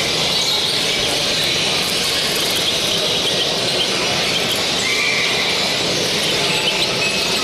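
Many caged songbirds chirping and singing at once: a steady, dense chatter of high notes, as in a hall full of show birds.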